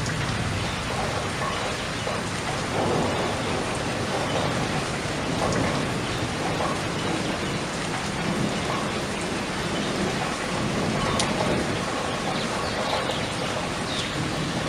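Steady rain falling, a dense even hiss with a deeper undertone and now and then a sharper single drop.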